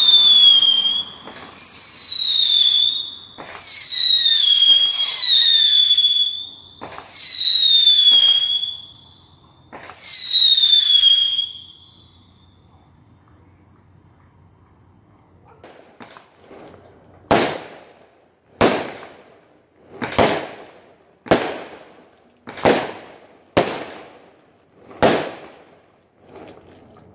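Whistling fireworks going off one after another, each a high shriek that falls in pitch over about a second. After a few seconds' lull, a string of about seven sharp firework bangs roughly a second apart, each with an echoing tail.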